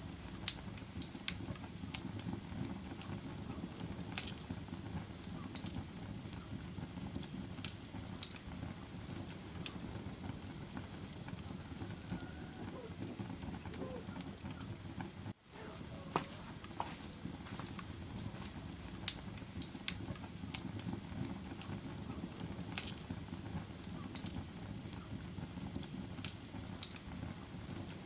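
Fire crackling: a steady low rush of flames with sharp pops scattered every second or so. The sound drops out for an instant about halfway through.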